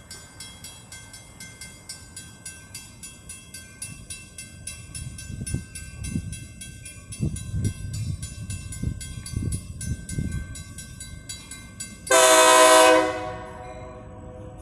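A GE B23-7 diesel freight locomotive passing with a bell ringing about three times a second and low thuds from the rolling train. Near the end comes one loud blast of about a second on the locomotive's air horn.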